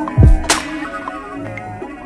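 Instrumental hip-hop beat: a plucked-string melody over kick drums, with a sharp snare or clap hit about half a second in.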